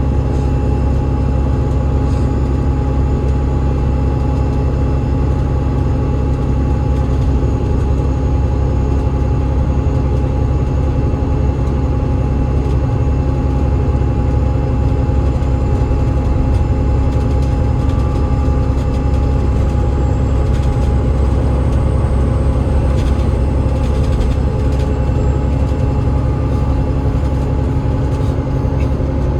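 Enviro500 MMC double-decker bus running steadily, heard from on board: the Cummins ISL8.9 inline-six diesel and ZF EcoLife automatic gearbox give a steady low drone with a few steady whining tones above it.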